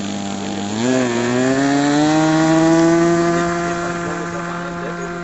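Engine of a Baby Cub mk2 radio-controlled model plane throttling up for its takeoff run. Its pitch jumps about a second in, climbs steadily for a couple of seconds, then holds, growing slightly fainter near the end as the plane moves off.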